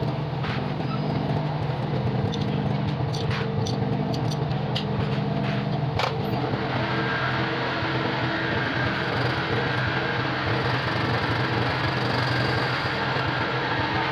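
Motorcycle engine running steadily, with light clicks over it for the first six seconds; about six and a half seconds in the clicks stop and the sound settles into a smoother hum.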